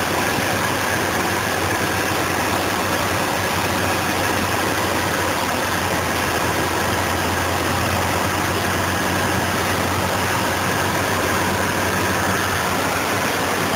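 Cessna 152's four-cylinder Lycoming O-235 engine and propeller running steadily, heard inside the cockpit along with an even rush of air noise.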